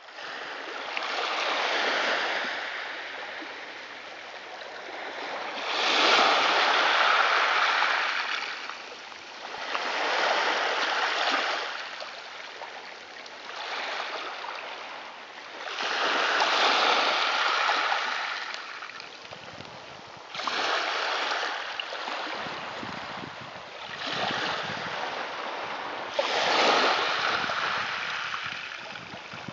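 Atlantic sea waves breaking and washing in, a rushing noise that swells and falls back every three to four seconds.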